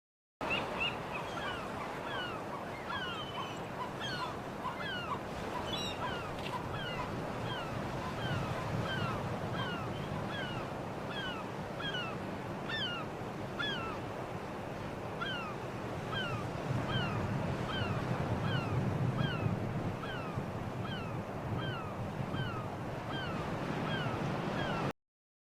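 Sea ambience: a steady wash of waves and wind, with a bird repeatedly giving short falling chirps about once a second.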